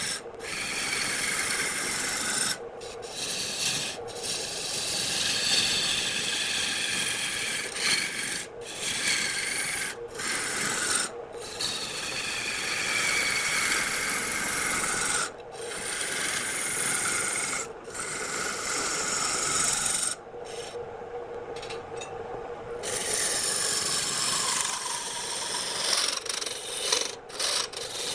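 A tool scraping and cutting against spinning wood on a wood lathe: a steady rasping hiss whose pitch slides slowly as the cut goes on, over a faint steady hum. It breaks off briefly now and then, with a longer pause about three-quarters of the way through.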